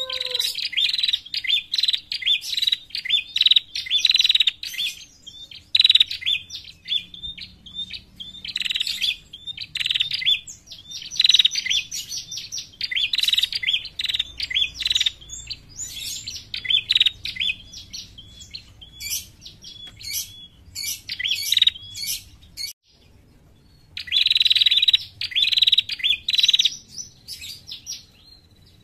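Female prenjak calling: fast runs of sharp, high chattering notes in phrases a few seconds long, with one short break about three-quarters through. This is the female call that bird keepers play to lure prenjak.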